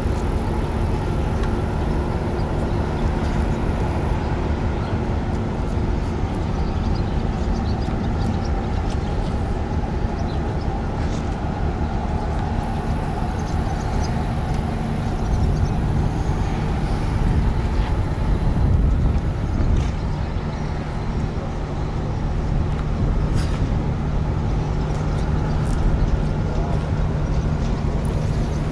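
A large engine drones steadily at a low pitch, over a rough, uneven low rumble.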